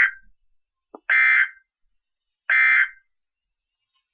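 NOAA Weather Radio EAS/SAME end-of-message data bursts. These are short, harsh digital screeches: one is ending as the sound begins, and two more follow about 1.4 s apart. They close the Required Weekly Test.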